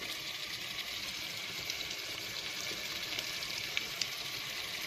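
Chopped tomatoes, peppers and carrots sizzling steadily in a stainless steel pot, with a few faint ticks.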